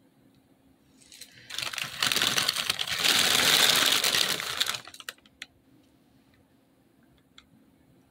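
Froot Loops cereal tipped out of its box into a hand: a dense, dry rattle of loops tumbling out that lasts about three seconds, then a few faint ticks.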